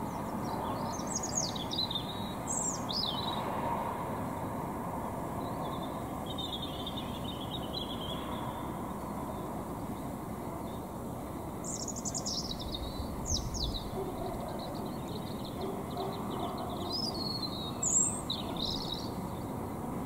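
A songbird singing in short, high, varied phrases, repeated several times with pauses between, over a steady low rumble of distant suburban traffic.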